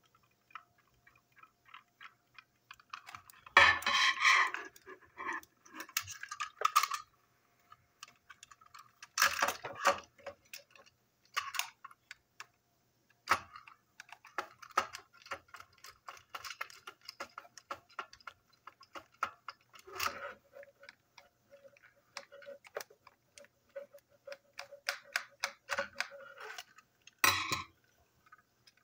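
Small clicks, taps and rattles of a toy locomotive's parts being handled and screwed back together with a small screwdriver, with a few louder clatters about four seconds in, near ten seconds and near the end.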